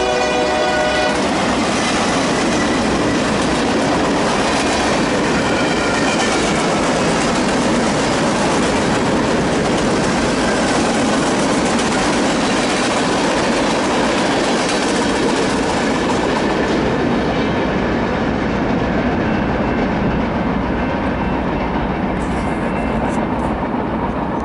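Freight train's boxcars rolling past close by, a loud, steady rolling noise of steel wheels on the rails. The lead locomotive's horn is still sounding at the start and stops about a second in. The noise thins toward the end as the last cars go by.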